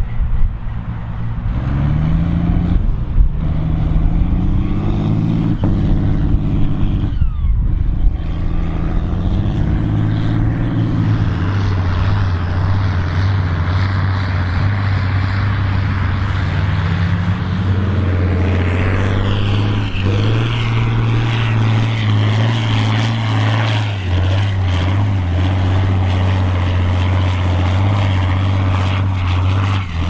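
Big farm tractors' diesel engines running hard under heavy load, pulling mouldboard ploughs through stubble at speed. The engine note climbs in steps in the first few seconds, then holds steady at high revs.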